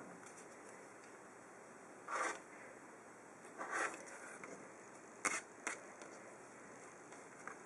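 Rotary cutter blade run along an acrylic ruler on a cutting mat, trimming a half-square triangle patchwork unit: two short scraping swishes, then two sharp clicks about half a second apart.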